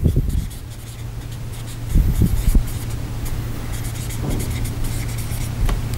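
Felt-tip marker writing on flip-chart paper: a run of short, faint, scratchy strokes as letters are written out. A steady low hum sits underneath, with a few soft low thumps about two seconds in.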